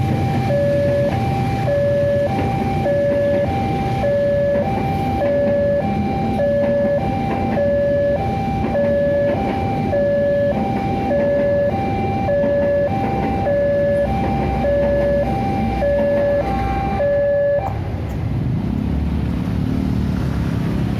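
Railway level-crossing warning alarm sounding two electronic tones that alternate about once a second, over the low rumble of a passenger train's carriages passing. The alarm cuts off suddenly about 17 seconds in, and motorbike engines are heard as traffic moves off over the crossing.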